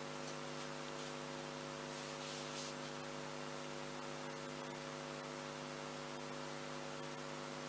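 Steady electrical hum, a stack of unchanging tones, over a constant background hiss.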